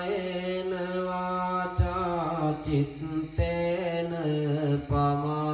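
A Buddhist monk chanting verses into a microphone in a slow, drawn-out melody. He holds long steady notes and breaks briefly for breath three times.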